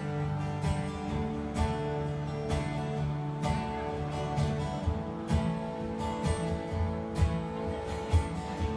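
Country music with strummed acoustic guitar and a steady beat.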